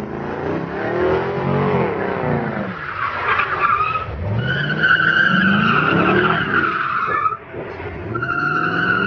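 C5 Chevrolet Corvette's V8 revving up and down while its rear tyres spin and squeal as it slides. The tyre screech gets going about halfway through, drops out briefly near the three-quarter mark, then starts again.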